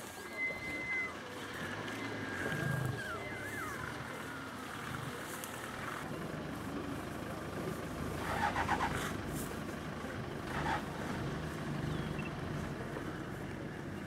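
Steady low engine rumble of an idling vehicle, with a few short high whistles in the first few seconds and a brief rapid rattle about eight seconds in.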